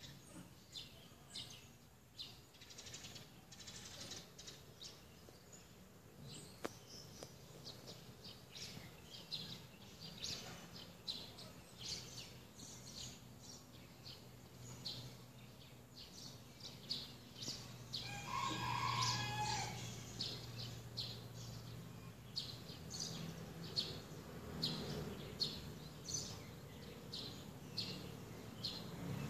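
Birds chirping in short, quick notes over and over, with one longer, louder call about eighteen seconds in.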